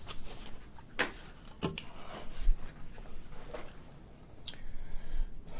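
Quiet sounds of eating chicken wings, with a few light clicks and knocks against a plate: one about a second in, two close together shortly after, and one more near the end.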